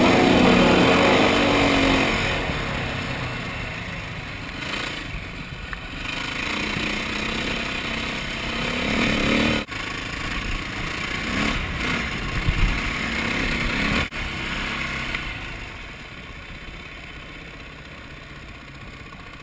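KTM 450 EXC single-cylinder four-stroke dirt bike engine heard from the bike itself as it is ridden, revving up and dropping back several times as the throttle is worked. The sound breaks off abruptly twice. In the last few seconds it settles into a quieter, steadier run.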